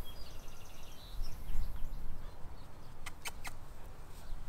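Outdoor ambience with a low wind rumble; a small bird gives a brief rapid chirping trill near the start, and two sharp clicks come about three seconds in.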